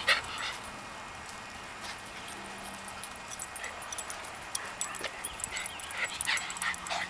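Small dogs playing together, giving short yips and barks: a few right at the start, then a quieter stretch, then more from about halfway through.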